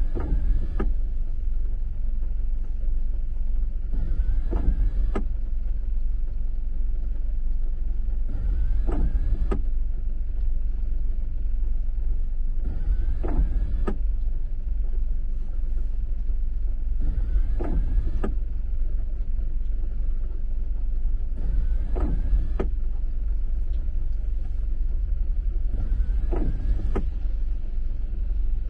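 Windshield wipers sweeping on an intermittent setting, about once every four seconds, each sweep a second-long whir of the wiper motor with a short rising tone. A steady low rumble of the idling car and the rain runs underneath, heard from inside the cabin.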